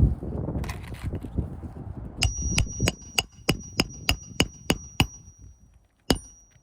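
Hammer driving a nail, striking metal: low handling rumble first, then a quick run of about ten blows at roughly three a second, each with a bright metallic ring, and one last blow near the end.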